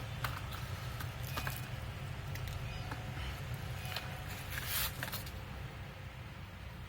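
Scattered light clicks and a brief rustling scrape a little before the five-second mark, over a steady low hum.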